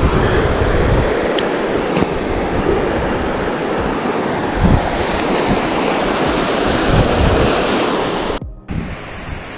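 Surf breaking on a sandy beach with wind buffeting the microphone, a steady loud rush with low rumbles; it cuts off abruptly about eight and a half seconds in and comes back quieter.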